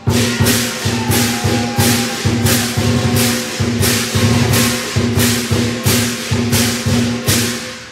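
Lion dance percussion: drum beats with cymbals crashing in a steady rhythm, about one crash every half second, over a steady ringing tone. It stops near the end.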